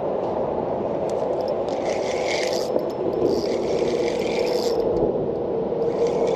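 Spinning reel being cranked to wind in line, in three short spells, over a steady rushing background noise.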